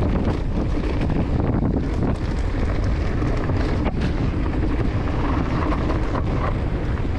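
Wind buffeting the camera microphone of a mountain bike coasting fast downhill, a steady loud rush with a few small knocks from bumps.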